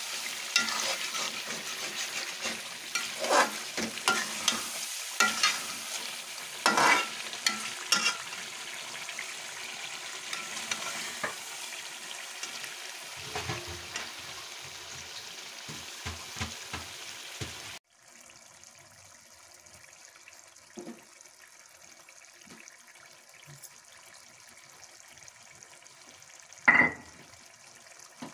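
Chicken curry sizzling and frying in a steel pot while a metal ladle stirs it, with frequent scraping clicks against the pot. About 18 seconds in the sound cuts to a much quieter background with a few faint clicks and one sharp clink near the end.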